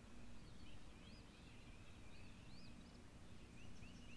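Faint birdsong: short chirping notes, growing into an even run of similar notes, about three a second, near the end. A low steady hum lies under it.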